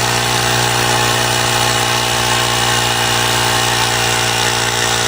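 Electric air pump running steadily, an even motor hum with hiss, inflating a freshly patched bicycle inner tube.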